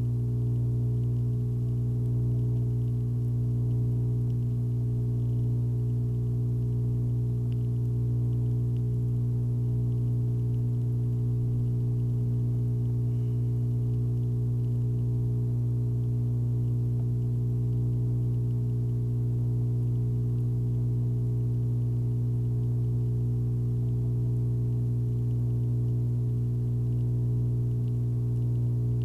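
A steady low hum with many overtones, unchanging in pitch and level throughout.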